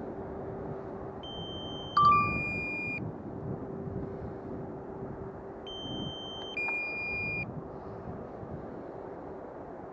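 Drone remote controller sounding a two-note warning beep, a higher tone stepping down to a lower one, twice, a few seconds apart. This is typical of the drone's low-battery warning. A sharp click comes with the first beep, over steady outdoor noise.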